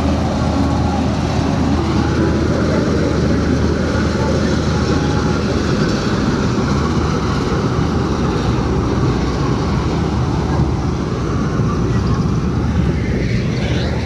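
Eicher 380 tractor's diesel engine running steadily, with a continuous low drone and mechanical rattle.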